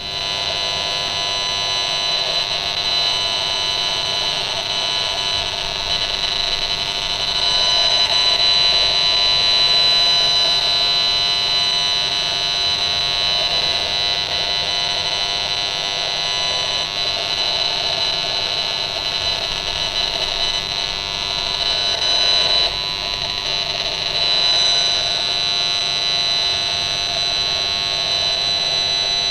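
Esmog Spion 5G RF detector's loudspeaker playing the radio-frequency signals it picks up as sound: a steady, shrill electronic buzz made of many fixed tones.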